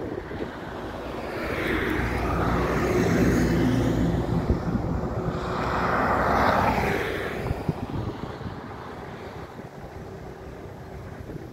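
Jet airliner engines on the runway, a steady rumble that swells for a few seconds and then fades away as the aircraft rolls past.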